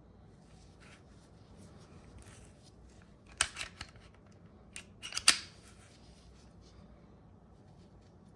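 Sharp clicks from handling a Glock pistol and its parts, in two quick clusters about three and a half and five seconds in, the second louder, over faint rustling.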